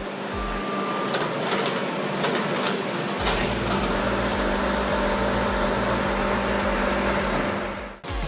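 Heavy industrial machine running: a steady mechanical noise with a few sharp knocks, joined about three seconds in by a low rhythmic pulsing.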